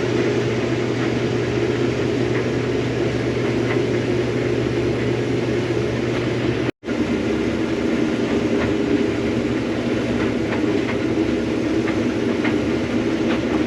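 Combine harvester running steadily while harvesting soybeans, a constant mechanical drone with a low hum; the sound drops out for an instant at an edit cut about seven seconds in.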